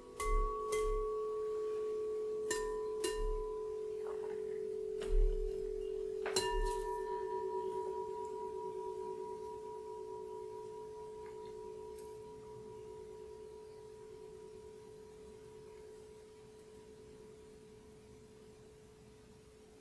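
Quartz crystal singing bowls tapped several times in the first seven seconds, each tap setting off a short higher ring. A low, steady bowl tone with a slow wavering beat, and a higher ring that joins about six seconds in, fade away slowly.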